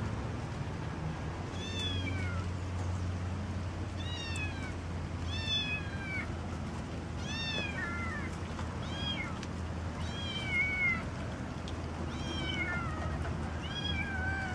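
Kittens mewing: about nine short, high-pitched mews that each fall in pitch, one every second or two.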